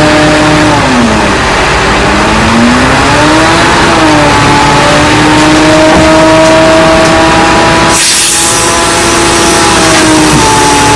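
Heavy construction machine's diesel engine working under load, its pitch dipping and rising and then holding steady, with a brief hiss about eight seconds in.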